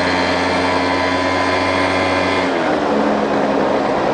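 Small motor-scooter engine running steadily with a high-pitched whine, then dropping in pitch and settling lower about two and a half seconds in as the throttle is eased off.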